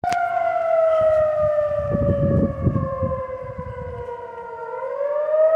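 Civil defense siren wailing: one long tone whose pitch falls slowly for nearly five seconds, then starts to rise again near the end. A low rumble comes in under it in the middle.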